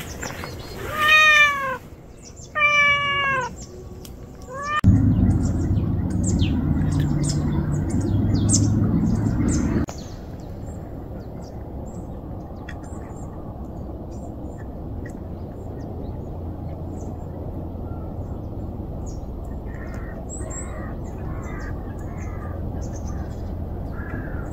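A calico street cat meowing three times, the first two meows long and falling in pitch at the end, the third short. After that comes a steady low hum for about five seconds, then a quieter steady background with faint ticks while a cat eats from a bowl.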